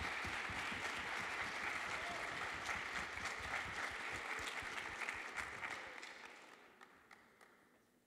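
Audience applauding in a large hall, steady for several seconds and then fading away near the end.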